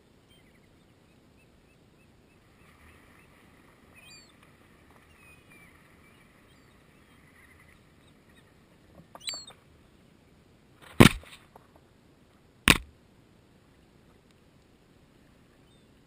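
Gulls crowding close around the microphone: faint distant calls, then three loud sharp knocks right at the microphone in the second half, the last two about a second and a half apart.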